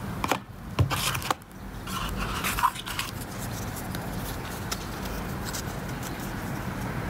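Packaging being handled: a few sharp clicks and knocks in the first second and a half, then scratchy rustling of a plastic sleeve and a small paper card being picked up. A steady low background rumble runs underneath.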